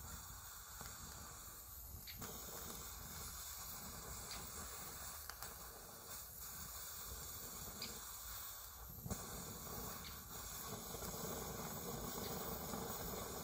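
Century-old Primus pressure stove burning with a low, steady hiss while its burner heats up, the flame still large and yellow. A few faint ticks come through now and then.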